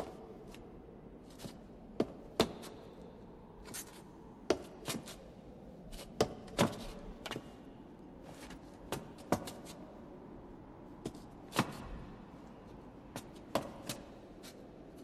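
Slow, uneven footsteps and scuffs of a man staggering down stone stairs: sharp knocks at irregular intervals, some in quick pairs, over a faint steady hiss.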